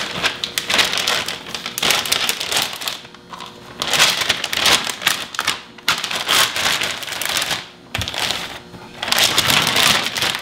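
Clear plastic vacuum-sealer bag crinkling and rustling as a chuck roast is pushed into it by hand. The crinkling comes in four stretches with short pauses between them.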